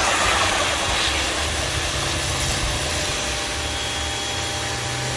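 Electric pressure washer running: a steady motor and pump hum under the hiss of the high-pressure water jet from a 0-degree nozzle.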